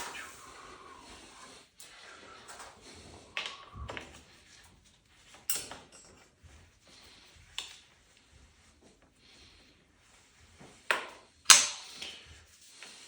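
Scattered clicks and knocks from handling the bike wheel, axle and tools while refitting the rear wheel: about five separate sharp knocks, the loudest two near the end.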